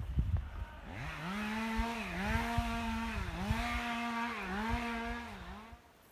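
Small high-revving engine, like a chainsaw's, running at a steady high pitch that dips briefly about four times, then stopping near the end.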